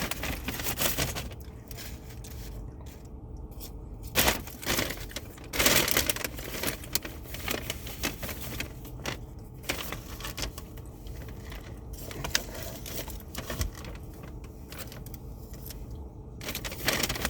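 Paper takeout wrappers and bag rustling and crinkling as a fast-food meal is handled, with irregular sharp crackles, the loudest about four and six seconds in and near the end.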